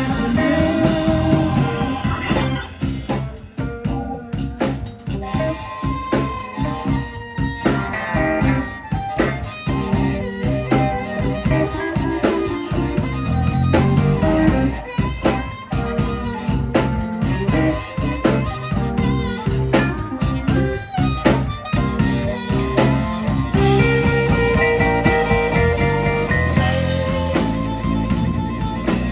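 Live blues band playing: a harmonica solo, played into a hand-held microphone, over electric guitar, bass and drums.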